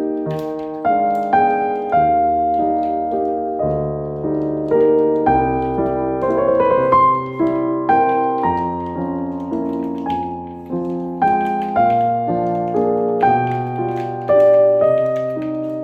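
Piano music: notes and chords struck one after another, each dying away.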